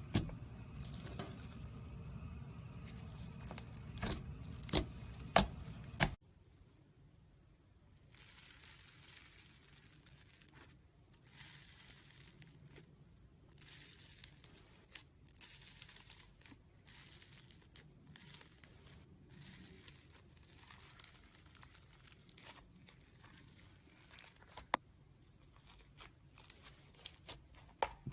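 Slime being squeezed and stretched by hand, making crinkly, crackling squishes in short bursts, with a few sharp pops in the first few seconds. The sound changes abruptly about six seconds in.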